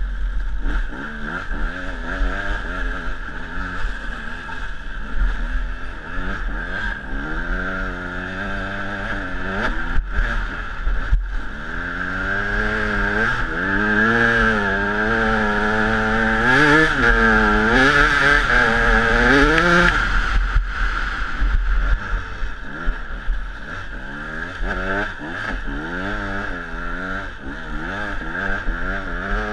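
Dirt bike engine being ridden hard, its pitch rising and falling over and over as the throttle is worked, highest and loudest in the middle stretch. A steady low rumble sits under it.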